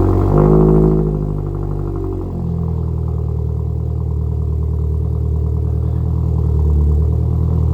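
2022 Subaru WRX's turbocharged 2.4-litre flat-four just after starting, fitted with an aftermarket axle-back exhaust. The revs fall from the start-up flare over the first couple of seconds, then settle into a steady idle.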